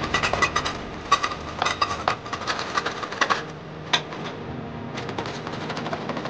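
A knife blade chipping and scraping loose plaster off a wall: rapid sharp taps with a metallic ring, thick and fast for the first three seconds or so, then thinner and spaced out.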